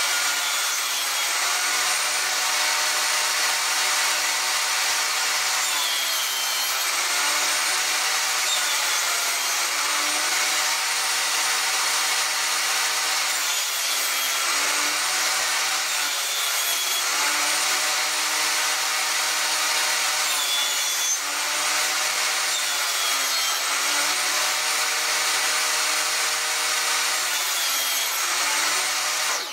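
Table saw running and cutting fir boards of a corner shelf as the piece is pushed across the blade. The saw noise is loud and steady.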